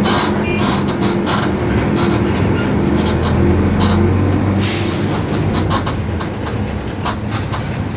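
Mercedes-Benz OF-1721 BlueTec 5 city bus running under way, heard from inside: a steady low drone from the four-cylinder diesel and driveline, with the rear differential growling, over clicks and rattles from the body. About halfway through there is a short hiss of air.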